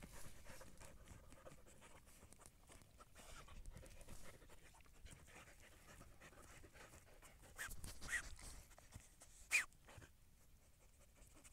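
Dogs digging in loose soil, paws scratching at the earth, with sniffing and panting at the hole. A few short, sharper sounds come near the end.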